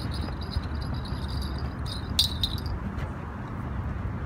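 Fishing reel's line-out clicker ticking rapidly as a fish runs with the bait, stopping about two and a half seconds in with a sharp click as the rod is picked up. Low wind rumble on the microphone throughout.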